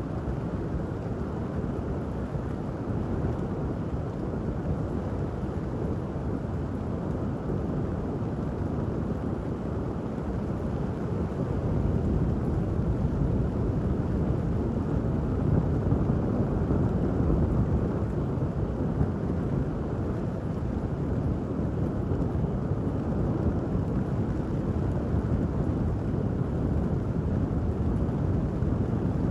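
Steady rain with a deep, low rumble under it that swells for several seconds about halfway through.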